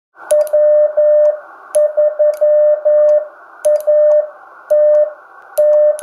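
Morse code CW sidetone, a single steady tone of about 600 Hz, from an ICOM IC-7000 transceiver keyed with a Bencher iambic paddle. It sends short and long elements in groups that read as the callsign W3ATB, with a sharp click at the start of each element over a steady background hiss.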